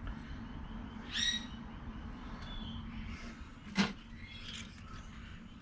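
A bird gives a short chirp about a second in, with fainter chirps after, over a low steady hum; a single sharp knock sounds just before the four-second mark, from the hub parts being worked into place.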